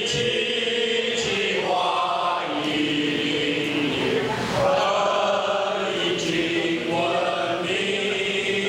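A large crowd of mostly male voices singing their school anthem together in unison, holding long notes and moving from note to note.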